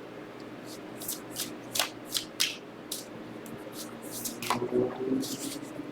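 Tarot cards being handled: a dozen or so short, crisp flicks and slides of card stock, irregularly spaced.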